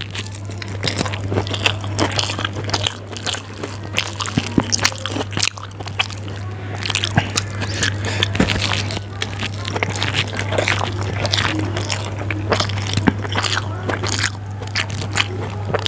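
Close-miked chewing of soft Maggi instant noodles eaten by hand: a dense run of wet mouth clicks and smacks, over a steady low hum.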